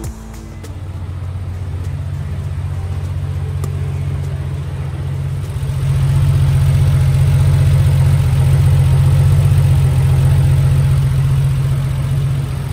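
Porsche 993 Carrera S's air-cooled flat-six engine idling steadily. It grows louder about six seconds in and eases off near the end.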